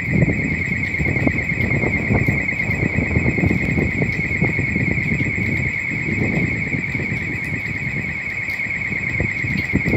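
A steady, high-pitched warbling tone holds throughout, over uneven low rumbling noise.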